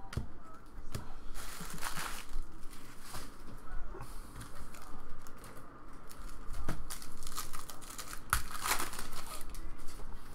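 Foil wrapper of a trading-card pack crinkling and tearing as the pack is opened, in short bursts, with the light rustle of cards being handled.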